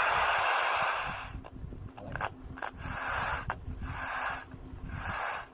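Hiss of an untuned FM radio played through an amplifier's speaker. It runs for over a second, then comes back in four shorter bursts about a second apart, with a few clicks between them.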